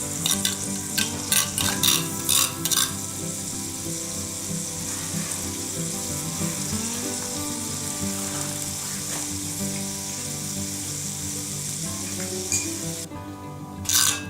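Fish sizzling and frying in a hot skillet, a steady hiss, with a few short utensil strokes against the pan in the first seconds. The sizzle cuts off abruptly about a second before the end, followed by more quick strokes.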